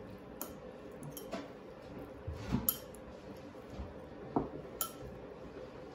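Chopsticks stirring diced pork belly in a ceramic bowl, clinking against the bowl several times at irregular intervals.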